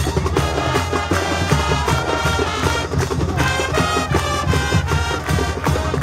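High school marching band playing a Spanish-themed field show: brass over drumline with a steady beat.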